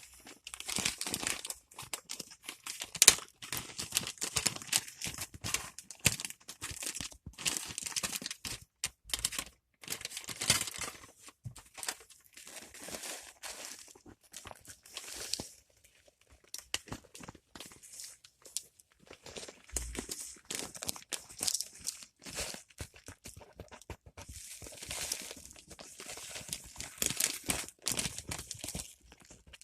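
Plastic bag of potting mix rustling in irregular bursts as the soil is worked out of it into the terrarium, with a few sharper clicks.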